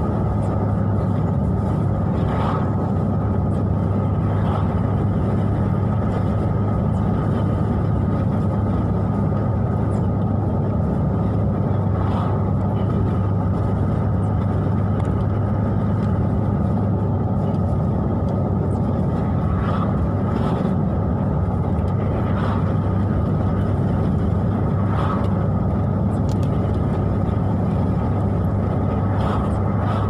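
Steady drone of a car's engine and tyres heard from inside the cabin while driving on a wet road, with faint brief ticks every few seconds.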